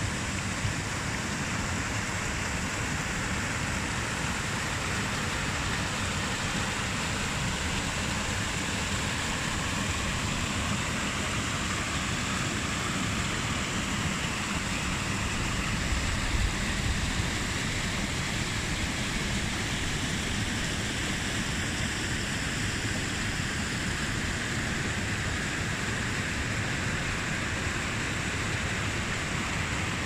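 Mountain stream rushing over small rocky cascades, a steady even rush of water, with a short low rumble about halfway through.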